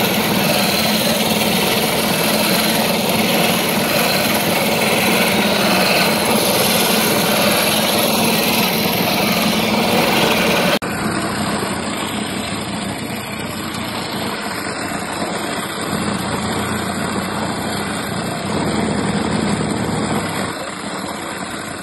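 Electric motor of a kite-string (manja) winding machine running steadily with a hum, spinning the spool as the thread is wound off a large reel. The sound changes abruptly about halfway through but the machine keeps running.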